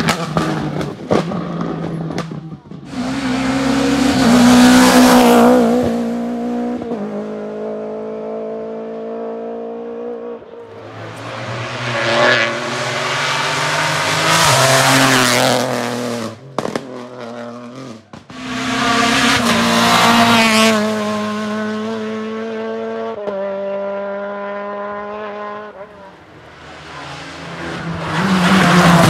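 Rally car engines revving hard on a stage in repeated loud surges, with the pitch climbing and stepping between gears, and quieter lulls off the throttle in between.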